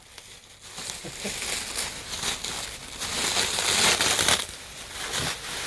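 Packing material crinkling and rustling as a boxed prop is handled and unpacked, loudest between about three and four and a half seconds in.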